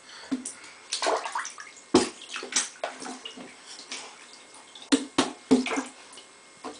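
Bath water splashing and sloshing in a tub in irregular bursts as a small child scoops and splashes water, washing her hair.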